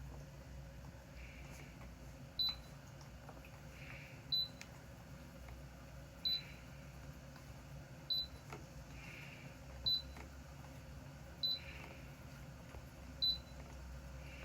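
Seven short, identical high beeps about two seconds apart, like a touch control panel acknowledging button presses, over a faint steady low hum.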